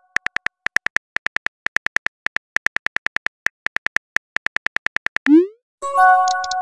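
Simulated phone-keyboard typing clicks from a texting-story app, rapid and even at about seven a second, as a message is typed out. About five seconds in, the typing stops with a short rising swoosh as the message sends, followed near the end by a bright chime of several tones.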